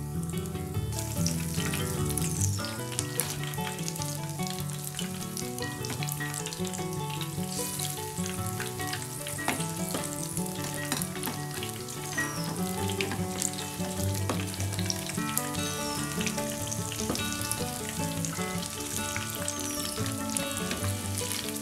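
Capsicum pakoras deep-frying in hot oil over a medium-to-high flame: a steady sizzle with many small crackles as the batter bubbles.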